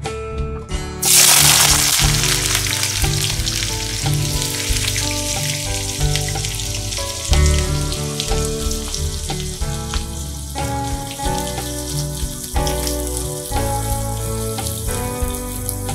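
Hot oil in an iron kadai sizzling loudly as sliced onions go in, starting suddenly about a second in and slowly easing while the onions fry. Background music plays underneath.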